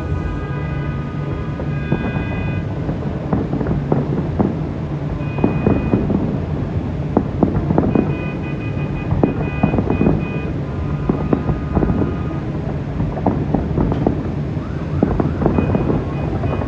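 Fireworks bursting in a rapid, irregular series of bangs and crackles over a steady low rumble, with held high-pitched tones coming and going.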